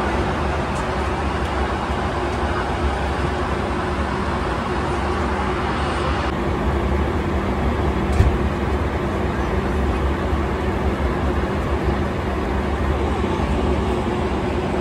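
Steady roar of a Boeing 757 airliner cabin in cruise: engine and airflow noise with a low, even hum. One short knock about eight seconds in.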